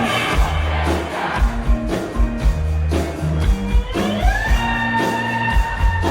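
Live rock band playing an instrumental passage over a steady drum beat and bass, with a slide guitar gliding up to a held note about four seconds in.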